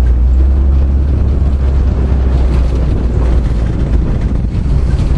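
Engines of WWII military vehicles in convoy running with a steady, loud low rumble.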